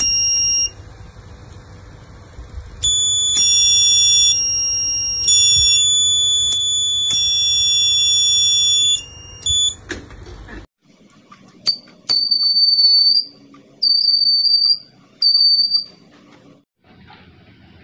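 Piezo buzzers on breadboard flame-sensor circuits sounding as a lighter flame is brought near the sensor. High, steady tones last a second or more, sometimes two pitches at once, with sharp clicks between them. After a cut, three beeps of about a second each come at a somewhat lower pitch.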